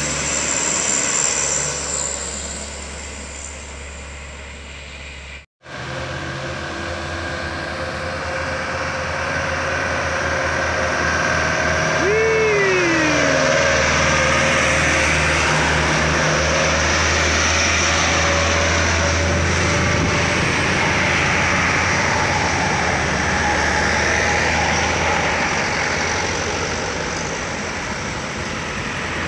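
Diesel engines of heavily loaded sugarcane trucks running hard as they labour up a steep climb close by, a steady low drone that grows louder after about ten seconds. The sound cuts out briefly about five seconds in.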